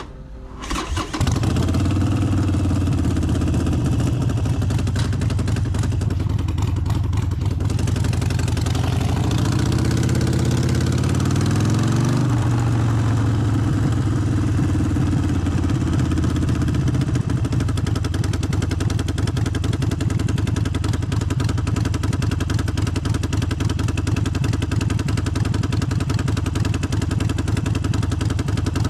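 Harley-Davidson Forty-Eight's air-cooled V-twin engine catches about a second in and runs. Its pitch climbs for a few seconds, drops sharply, then settles into steady running.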